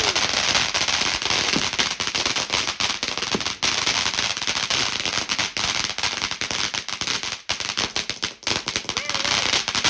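Consumer firework going off with a dense, continuous fast crackle and hiss.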